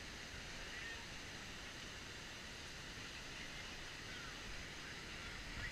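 Faint steady rush of a distant waterfall, with a few faint, short bird chirps over it.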